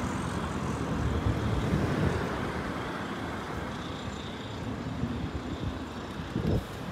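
Street traffic, a bus's engine running as it passes, the noise slowly easing off over a few seconds, with a brief louder knock near the end.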